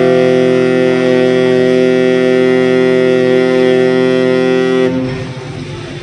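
Passenger ship's horn sounding one long, loud blast, a steady deep tone that cuts off about five seconds in.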